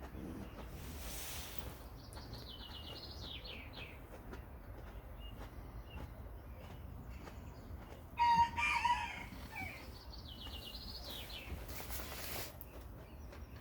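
A rooster crows once, about eight seconds in, with a few high bird chirps before and after. Two brief hisses come, one near the start and one near the end.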